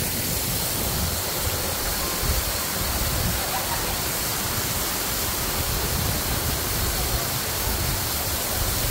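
Maracas Waterfall: a steady, rushing noise of falling water.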